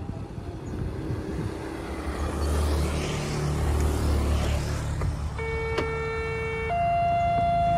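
Railway level-crossing warning siren starting about five and a half seconds in: a steady electronic tone that steps up to a higher pitch after about a second, signalling an approaching train before the barriers close. Before it, a low rumble of passing road traffic.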